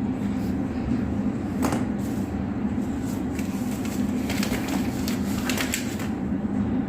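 Light clicks and scrapes of electrical wires and socket parts being handled, with a few short clicks about a second and a half in and a cluster between four and six seconds in, over a steady low hum.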